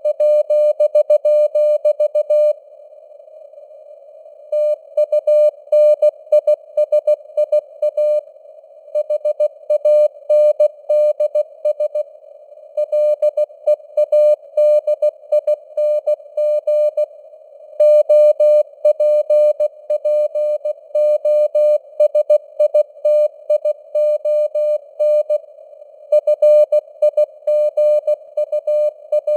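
Morse code (CW) sent at 16 words per minute as a single-pitch sidetone beep keyed on and off in dots and dashes, with short pauses between words. It sits in a narrow band of simulated radio hiss.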